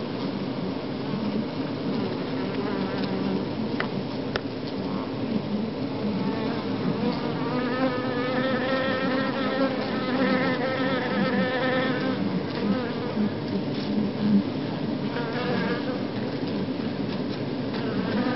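A honey bee colony clustered on its exposed comb, buzzing with a steady, dense hum. For a few seconds in the middle a higher, wavering tone rises over the hum.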